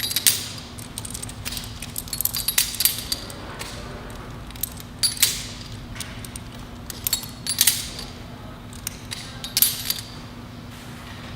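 Locking carabiners being worked quickly by hand, with gates opening and snapping shut and metal clinking in a dozen or so irregular clicks, over a steady low hum.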